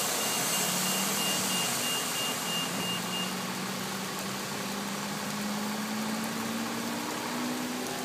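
Steady hiss of heavy rain on wet pavement. A high electronic beep repeats about three times a second for the first three seconds, while a vehicle engine runs underneath with its pitch slowly rising.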